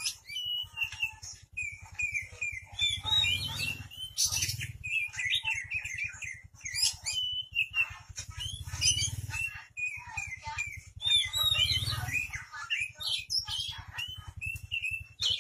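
Oriental magpie-robin (kacer) singing a long, varied run of clear whistles, quick trills and sliding notes with barely a pause, over a low hum.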